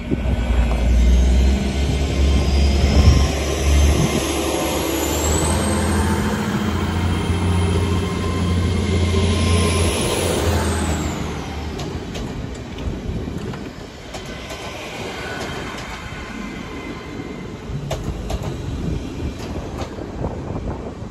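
Hull Trains Class 802 bi-mode train pulling away from the station on its underfloor diesel engines: a low engine drone with a high traction whine rising in pitch as it accelerates. The sound eases off as it moves away, with wheels clicking over the rail joints near the end.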